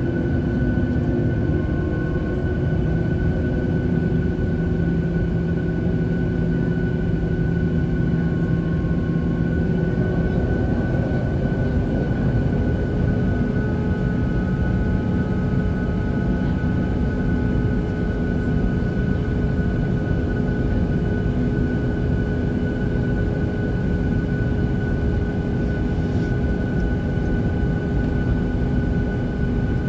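Cabin noise of a Boeing 737-700 taxiing, heard from inside the cabin: the CFM56-7B turbofan engines' steady hum with several held tones, which change in pitch about ten seconds in.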